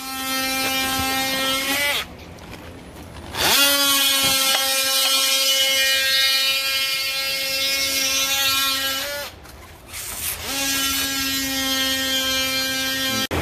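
Cordless drill motor running at a steady whine in three long runs. It stops about two seconds in, spins back up a second and a half later, stops again about nine seconds in, and starts once more.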